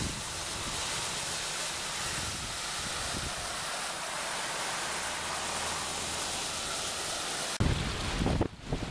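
Rough surf and wind on the beach: a steady rush of breaking waves, then near the end an abrupt switch to louder, gusty wind buffeting the microphone over the surf.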